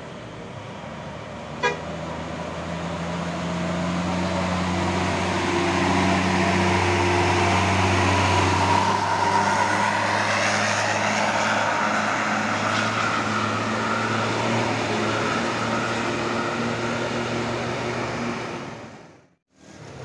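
A large tour bus's diesel engine labouring up a steep climb as the bus passes close by, getting louder toward the middle and then easing, with a multi-tone 'telolet' horn sounding over it. The sound cuts off abruptly just before the end.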